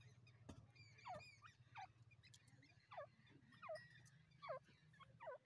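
Grey francolins giving a faint series of falling whistled calls, about one every 0.7 s, each sliding down steeply in pitch, over a low steady hum.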